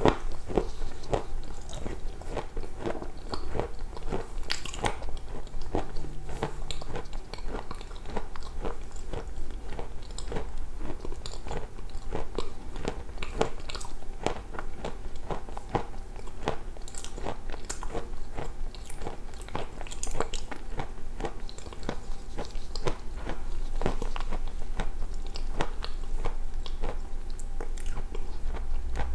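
Close-miked chewing of a hard, crunchy food: a steady run of wet crunches and mouth clicks, several a second, with no pause.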